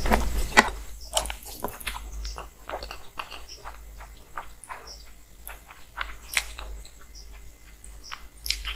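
Close-miked wet eating sounds: many small sticky clicks and squishes of fingers working rice with curry, along with chewing. They are densest and loudest in the first couple of seconds, then thin out.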